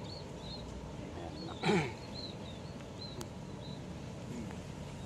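Small birds chirping in short repeated notes over a steady background hum, with one short loud cry falling in pitch about a second and a half in.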